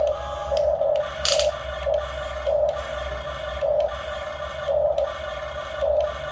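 Small electric motor of an RC excavator whining, swelling in short, irregular bursts as the arm and bucket are worked.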